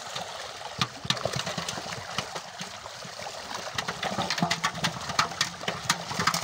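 Many fish crowded in a seine net thrashing and slapping the water, a run of sharp splashes and slaps that gets busier about four seconds in. A faint steady low hum comes in near the end.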